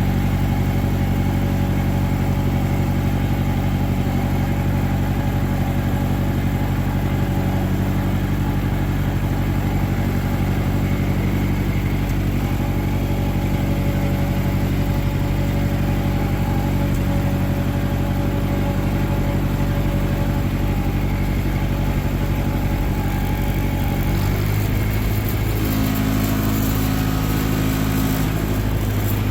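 A John Deere tractor's diesel engine running steadily. Near the end the engine note changes and settles into a new steady tone.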